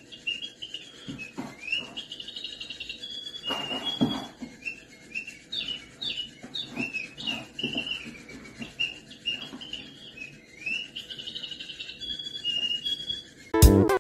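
A bird-shaped cat toy chirping and tweeting over and over in quick, high calls, with a few soft knocks among them. Loud music cuts in near the end.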